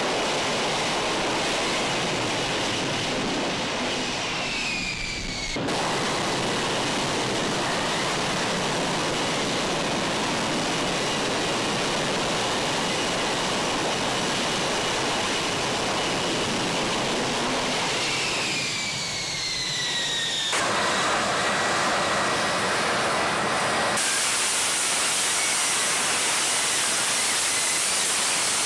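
F-35B's F135 jet engine and shaft-driven lift fan running at high power in a hover for a vertical landing: a loud, steady rushing noise. Twice a whine falls in pitch, and the sound changes abruptly a few times.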